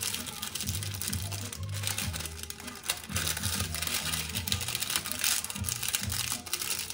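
Background music with a moving bass line, over continual crinkling, rustling noises.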